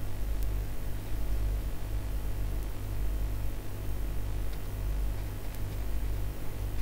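Steady low electrical hum with a faint hiss, and a few faint clicks.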